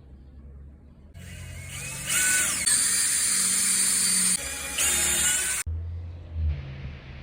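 A handheld power tool, such as a drill or driver, runs for about four seconds with a high whine over a hissing noise. It starts about a second in and cuts off suddenly near the end.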